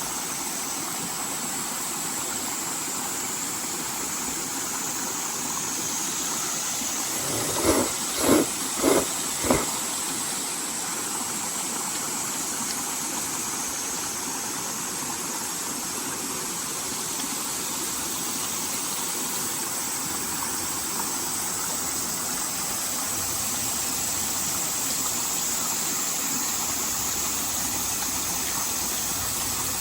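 Steady rushing noise like running water, broken about eight seconds in by four quick knocks in a row.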